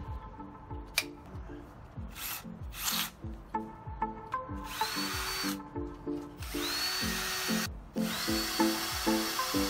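A 14.4 V cordless drill fitted with a plastic soil auger bit, spinning freely in the air. It gives two short blips, then three longer trigger pulls, the last about two seconds long. Each long pull brings a high whine that rises as the motor spins up and then holds steady.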